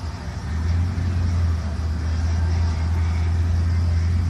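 Whipple-supercharged Ford Lightning pickup's V8 running steadily with a deep, even rumble, holding revs before a launch.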